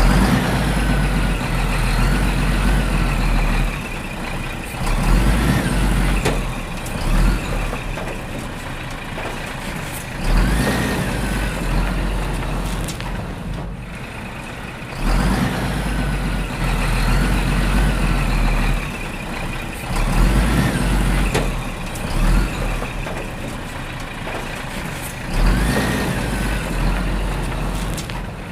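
A looped recording of heavy-vehicle engine sounds with low rumbling and rising and falling whines, the same stretch repeating about every fifteen seconds.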